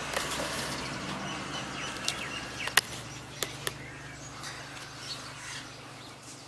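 Outdoor ambience of birds chirping faintly, with a few sharp clicks around the middle and a low steady hum underneath.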